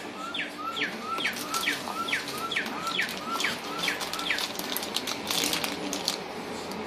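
A bird repeating a short two-part chirp, a brief upward note then a falling one, about twice a second, stopping about four seconds in. Crinkling of a clear plastic bag being handled, strongest near the end.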